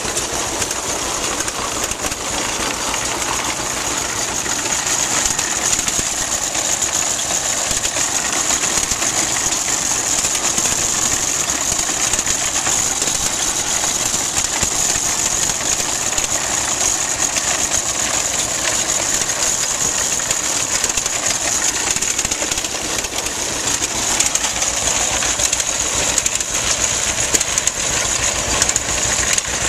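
John Deere tractor engine running steadily while it pulls a corn binder, with the binder's chains and gears clattering as it cuts corn stalks and ties them into bundles.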